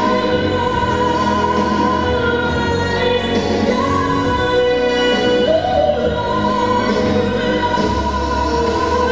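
Music for a rhythmic gymnastics ball routine, with a voice singing long, held high notes over the accompaniment.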